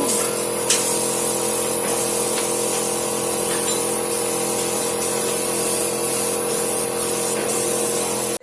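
Onion sorting machine running: a steady motor drone with a high hiss over it and a few light clicks, cutting off abruptly at the end.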